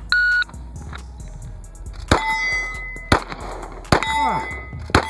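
A shot timer's start beep for about a third of a second, then four pistol shots about a second apart, each followed by steel target plates ringing from the hits.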